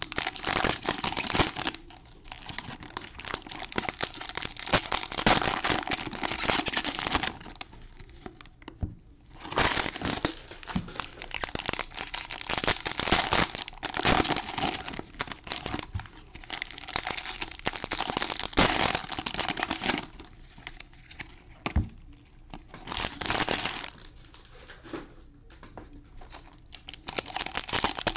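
Plastic wrappers of football card fat packs crinkling in bursts with short pauses as they are handled, and torn open near the end.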